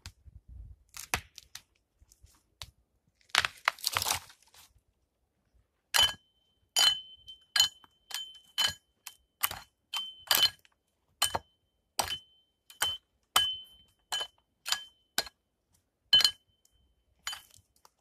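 Axe chopping into a fallen log: about twenty sharp strikes, roughly two a second, each with a brief ringing tone. A short crackling rustle comes about three seconds in, before the chopping starts.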